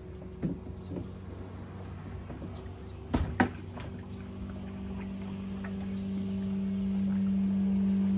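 Plastic kayak knocking against a floating plastic kayak launch as the paddler pushes off into the water, with two sharp knocks about three seconds in and light paddle and water sounds. A steady motor drone grows louder through the second half.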